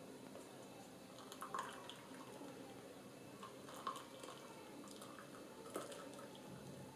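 Milky tea poured from a metal pot through a plastic tea strainer into a mug: a faint trickle and drip of liquid, with a few light clicks.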